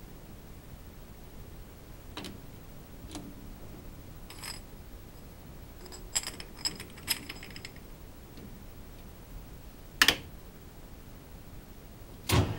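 A chuck key turning in a metal lathe's three-jaw chuck as the workpiece is loosened and re-clamped: scattered metallic clicks and clinks, with a quick cluster about six to seven and a half seconds in. A sharp knock comes about ten seconds in and a heavy clunk near the end.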